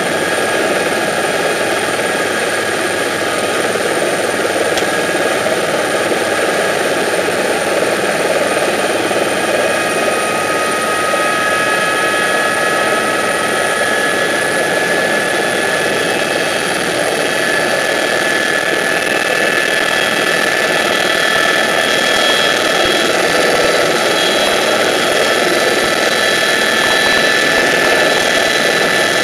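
Eurocopter EC130 EcoStar helicopter's turbine and rotor heard from inside the cabin: a steady rushing noise with a high whine. The whine rises slowly in pitch, and the sound grows a little louder toward the end as power comes up for takeoff.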